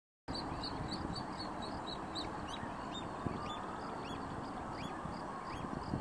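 Chorus of wetland birds calling: many short, high calls repeating several times a second, over a steady low rumble of background noise. It starts abruptly a moment in.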